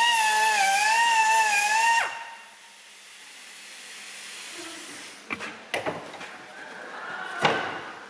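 Die grinder with an abrasive point whining at high speed while it grinds rust scale out of a Panhard rod's bush boss. Its pitch wavers as it bites, and it stops about two seconds in. A few sharp knocks follow near the end.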